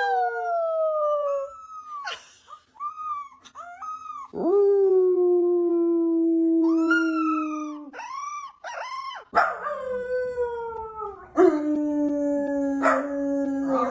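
A dog howling: long drawn-out notes that slide slightly downward, broken by shorter rising-and-falling yelps. One held howl lasts about three and a half seconds near the middle.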